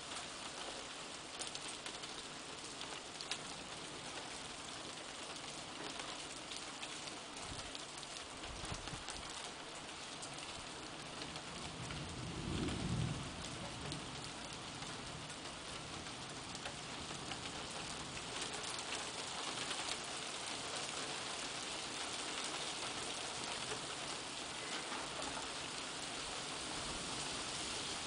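Steady rain during a thunderstorm: an even hiss of falling water with scattered sharp drips. About halfway through comes a brief low rumble.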